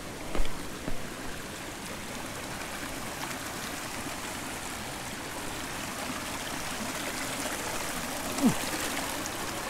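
Shallow river rushing over and between boulders, a steady rush of water. There are two short knocks about half a second and a second in, from footsteps on the rock, and a brief sound falling in pitch near the end.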